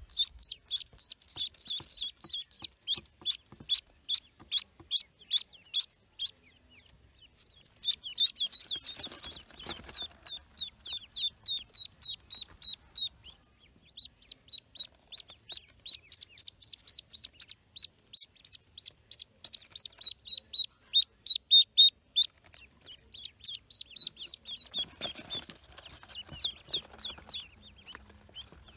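Pekin ducklings peeping loudly and rapidly, several high, short, down-slurred peeps a second. The peeping comes in bouts with brief lulls. Twice, around the middle and near the end, there is a rustling as a hand works among them in the dirt hole.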